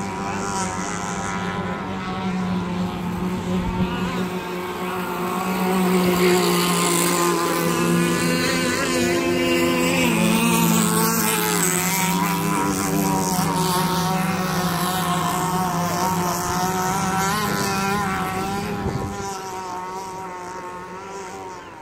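Several radio-controlled racing powerboats running flat out, their small motors whining at several overlapping pitches that rise and fall as the boats pass. The sound grows louder in the first few seconds and fades near the end.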